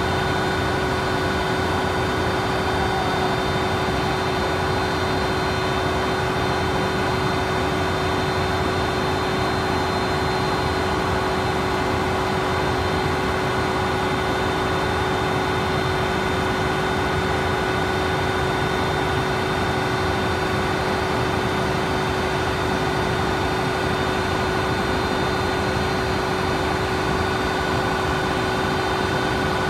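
Steady machine drone with several fixed, unchanging tones over a rumble.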